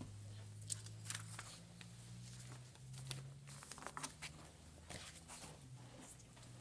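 Quiet room: a low steady hum with a few faint rustles and clicks scattered through it.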